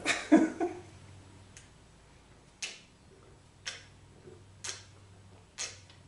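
A person gulping water from a tumbler, with loud swallows about a second apart, five in all, the first faint.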